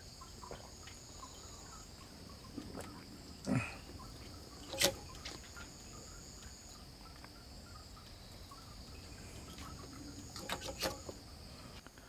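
Faint, steady chirring of crickets and other insects, with a small water plop about three and a half seconds in where a groundbait ball lands near the float. A sharp click follows shortly after, and a few lighter clicks come near the end.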